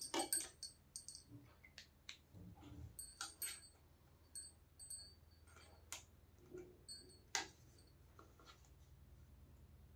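Faint, irregular small clicks and ticks, a louder one right at the start and another about seven and a half seconds in, over a low steady hum.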